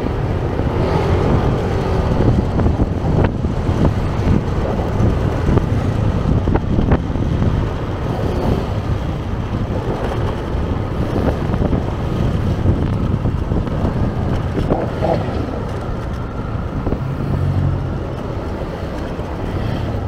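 Wind buffeting the microphone on a moving motor scooter, over the scooter's engine and the surrounding street traffic.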